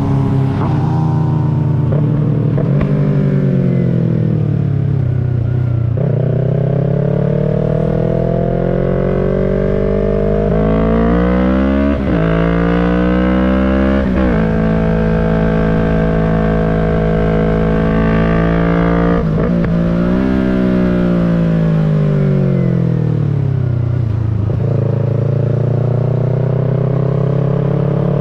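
Yamaha MT-03 motorcycle engine under way: revs fall as it slows, then climb with brief drops in pitch at the gear changes, hold steady for a few seconds, fall again past the middle and rise once more near the end.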